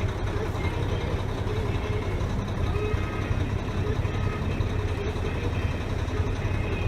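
Steady low rumble of an idling engine, most likely the Mack CH truck's diesel.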